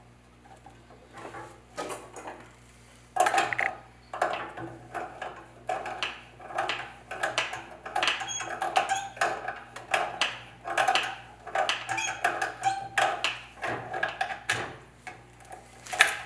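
Rapid, irregular metallic clinks and knocks of metal parts being handled: a few light taps at first, then steady clattering from about three seconds in, with one loud knock near the end.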